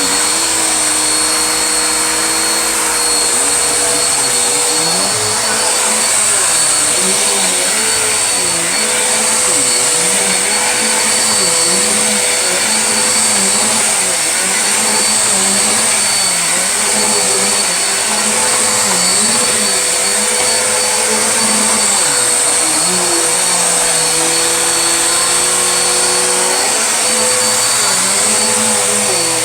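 Vacuum cleaner running continuously, its motor holding a steady whine over a strong airflow hiss. Underneath, a lower tone rises and falls about once a second.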